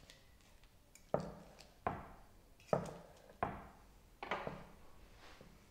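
Cutlery knocking against the dish while cutting into an omelette: five short knocks, under a second apart, starting about a second in.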